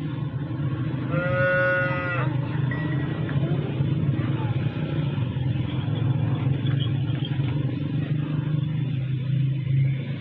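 A steady low mechanical hum runs throughout. About a second in, a farm animal gives one call lasting about a second.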